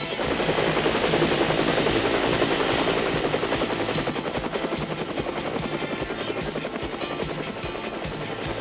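Helicopter rotor chopping steadily, the fast beat of its blades running through the whole stretch.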